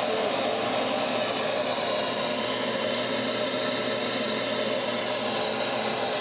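SuperFlow flow bench running steadily, its motors pulling about 400 CFM of air through a turbo inlet pipe and cone air filter at about 20 inches of water test pressure: a constant rushing of air.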